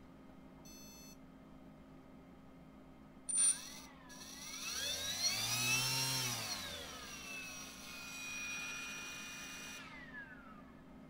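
A brushless RC motor with a propeller, driven through an ESC by a servo tester, spins up: its whine rises in pitch to a peak about six seconds in, drops back, holds steady for a couple of seconds, then winds down and stops near the end. A faint short beep comes about a second in, and a brief sharp sound about three seconds in.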